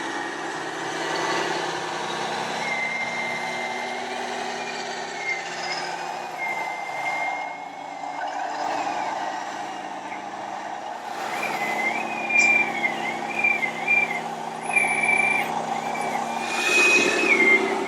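Radio-controlled scale trucks and construction machines running, their electronic sound modules playing truck engine noise through small speakers, with a wavering high-pitched whine and short hissing bursts like air brakes.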